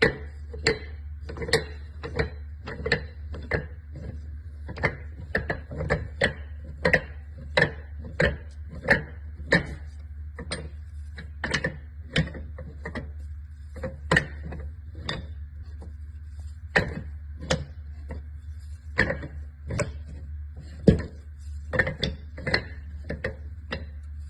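Hardwood end-grain cutting board strips clacking against each other and the bench as they are set down and shifted into place. The sharp wooden knocks come irregularly, about one or two a second, over a steady low hum.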